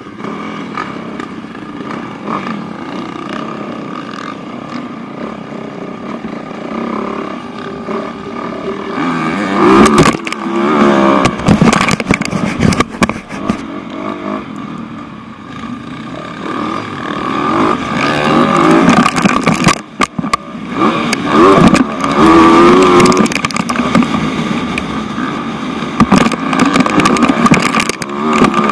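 Motocross bike engine heard from a camera mounted on the bike. It runs at a lower, steady level at first, then from about nine seconds in revs hard, its pitch repeatedly rising and falling as it is ridden around the track.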